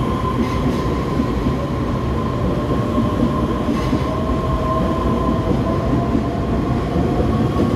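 Taiwan Railway EMU3000 electric multiple unit pulling out of the station and gathering speed. Its wheels rumble steadily under a steady high whine, and a second tone slowly rises in pitch from about halfway through as the train speeds up.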